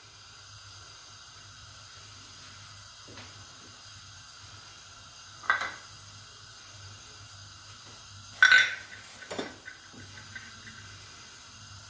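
Beaten egg and oil frying in a non-stick frying pan, a faint steady sizzle, with a few short sharp clinks and knocks of the pan, the loudest about eight and a half seconds in.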